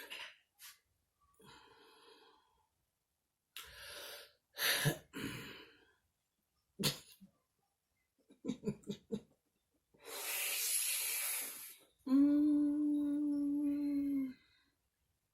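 A woman breathing heavily and making short throat and mouth noises while holding back a burp after gulping soda. Near the end comes a steady hum of about two seconds with her mouth closed.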